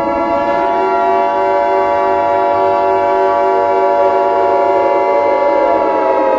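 Civil defense siren sounding at a steady pitch after winding up, with a steady alert tone laid over it that cuts off just after the sound ends.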